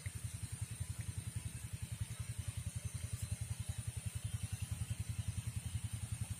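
A small engine running steadily at an even idle, with a regular chugging pulse about ten beats a second and a thin steady high whine over it.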